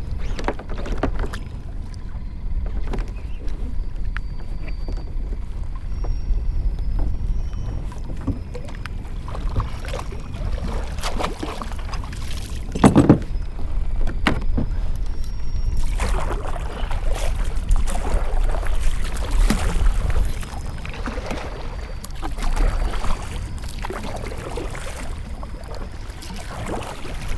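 Wind rumbling on the microphone while water slaps at a fishing kayak's hull, with scattered knocks on the hull and one loud thump about halfway through. From the middle on there are stretches of busier splashing.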